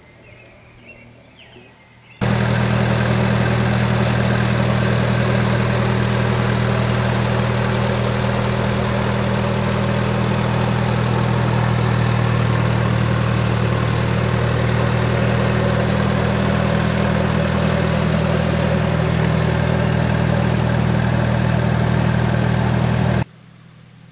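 Trailer-mounted, olive-drab enclosed engine generator set running steadily at constant speed: a steady low hum of a few even tones under a noisy mechanical clatter. It cuts in abruptly about two seconds in and cuts off abruptly about a second before the end.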